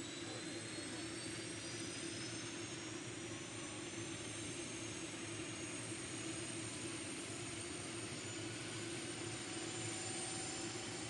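OH-6D helicopter's turboshaft engine starting up: a high whine rising slowly in pitch over a steady low hum, as the main rotor begins to turn.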